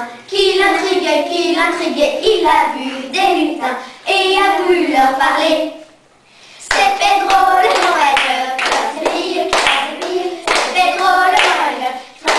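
A small group of children singing a song together, with hand claps mixed in; the singing breaks off briefly about six seconds in.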